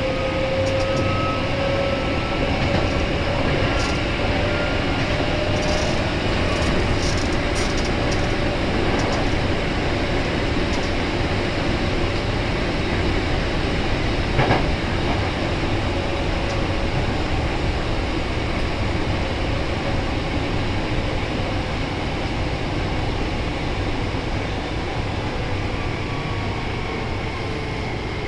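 Nose Electric Railway 1700-series electric train running at speed: a steady rumble of wheels on rail, with a faint whine that drifts slowly in pitch. A single sharp click comes about halfway through.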